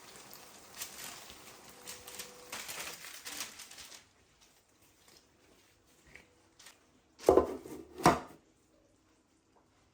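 Kitchen clatter: light handling noises, then two loud knocks of cookware about seven and eight seconds in.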